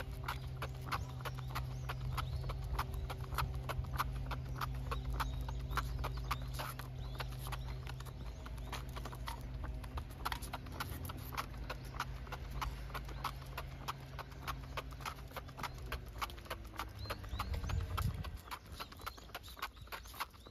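Quick, irregular tapping of a Cavalier King Charles Spaniel's booted paws on asphalt as it trots along, several taps a second. A low steady hum runs beneath and drops away about eighteen seconds in.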